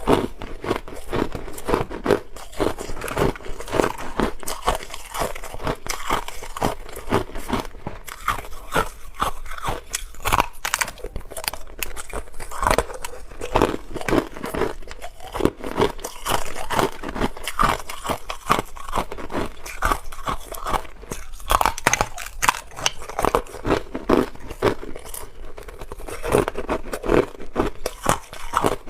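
Hard clear ice being bitten and chewed close to the microphone: a dense, unbroken run of sharp crunches and cracks.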